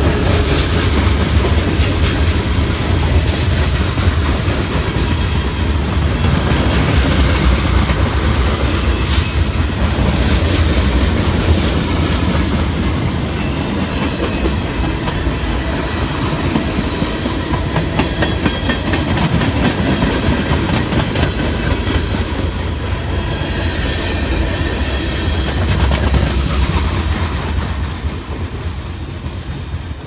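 Norfolk Southern freight cars rolling past at close range: a steady rumble and clatter of wheels on rail joints, with thin high squealing tones from the wheels at times. The sound fades over the last few seconds as the end of the train moves away.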